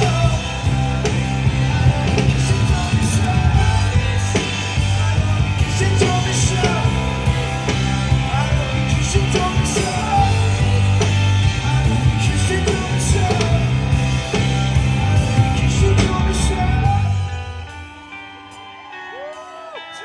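Live rock band playing the loud, full instrumental close of a song. About 17 seconds in, the band stops abruptly, leaving a much quieter stretch with a few sliding tones.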